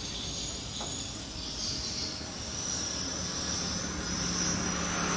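A distant engine drone that grows louder from about three seconds in, over a steady high insect whine.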